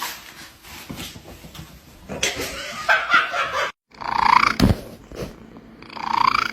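A cat vocalising, with two drawn-out calls in the second half after a brief cut to silence.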